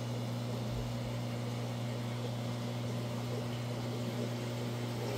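Aquarium equipment humming steadily: a low, even electrical hum under a faint hiss.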